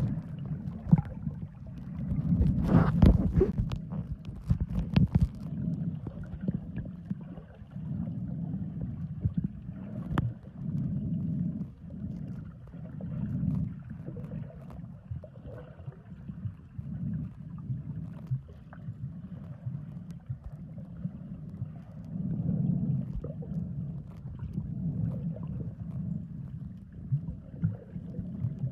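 Muffled underwater rumbling and gurgling of moving water picked up by a camera held underwater, swelling and fading every second or two. Sharp clicks and knocks come in the first few seconds.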